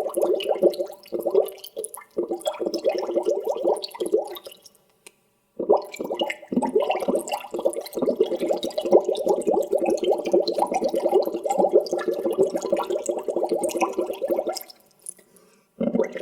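Water bubbling, a dense run of small rapid bubble pops that stops for about a second twice, around five seconds in and near the end.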